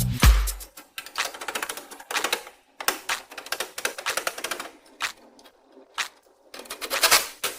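Irregular bursts of rapid mechanical clicking and rattling, broken by short pauses. Music with a heavy beat cuts off in the first second.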